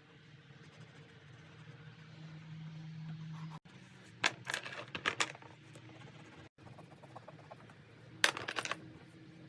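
Low steady hum with two short bursts of rapid clicking and clattering, one about four seconds in and another about eight seconds in.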